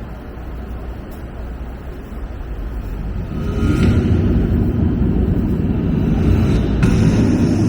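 Deep rumbling bass from a light show's soundtrack over loudspeakers, swelling louder about three seconds in.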